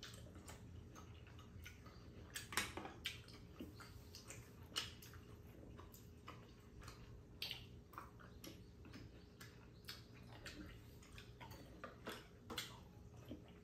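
Quiet eating sounds: scattered soft mouth clicks and smacks from chewing green grapes, over a low steady hum.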